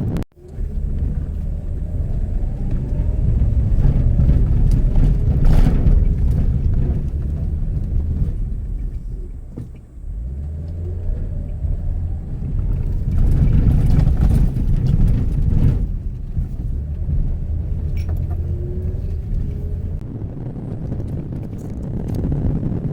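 Mitsubishi Pajero Mini kei 4x4 on the move: a loud, steady low rumble of engine and drive, with the engine note rising in pitch a few times. The sound drops out sharply for a moment at the start and dips briefly about ten seconds in.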